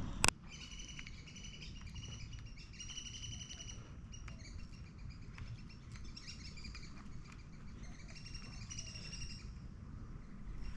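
Birds chirping in fast trilled runs, faint and repeated with short pauses. There is one sharp click just at the start.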